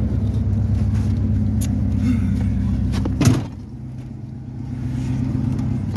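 Truck engine idling steadily. A sharp knock comes about three seconds in, after which the engine sounds quieter and then builds again, with another knock near the end.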